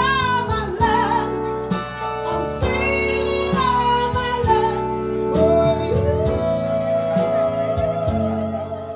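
A woman singing live with a synthesizer keyboard playing sustained chords beneath her. Over the last few seconds she holds one long note with vibrato.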